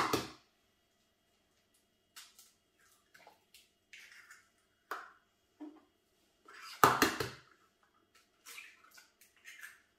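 Eggs being cracked into a Thermomix bowl of heated milk: scattered light taps and drips, with a sharp click at the start and one louder knock about seven seconds in.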